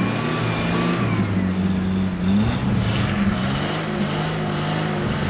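Off-road 4x4's engine running and revving, its pitch rising and falling.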